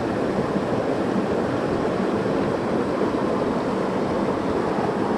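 Steady rushing of water in a small mountain trout stream.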